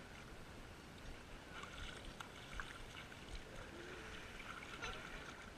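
Faint splashing and lapping of shallow lake water as small children kick and shift about in it, with scattered little splashes clustering in the middle seconds.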